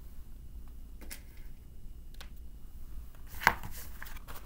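Light clicks and taps of tangram pieces being handled against a whiteboard, over a faint low hum, with one sharp, louder click about three and a half seconds in.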